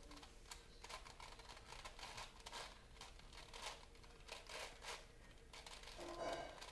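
Plastic puzzle cube being twisted by hand: faint, irregular clicking of its layers turning, a few clicks a second, with a slightly louder rattle near the end.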